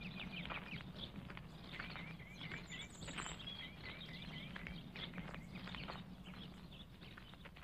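Faint birdsong: several birds chirping, with two quick runs of short, repeated downward-sliding notes, over a steady low hum. It slowly fades near the end.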